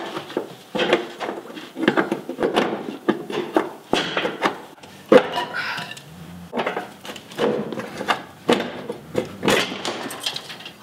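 Irregular knocks and metal clanks of tools working a seized leaf-spring eye bolt out of its bushing, with a socket extension and wooden block set against the bolt end; the sharpest knock comes about five seconds in.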